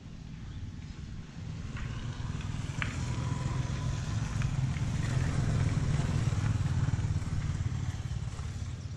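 Jiangdong diesel engine of a homemade tractor running steadily with a low throb, louder in the middle, with a few faint clicks in the first half.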